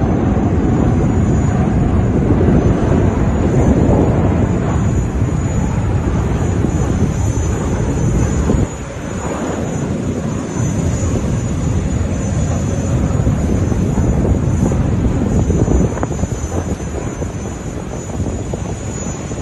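Jet engines of a low-flying Airbus A380 airliner passing by, a loud steady rush of engine noise. The level drops suddenly about eight and a half seconds in.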